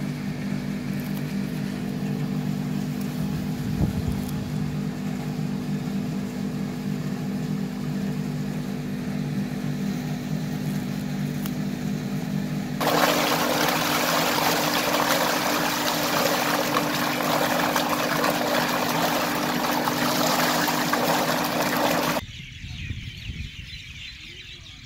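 An engine running steadily with a low, even hum. About halfway through, a loud steady rushing noise joins it, and both stop abruptly a few seconds before the end.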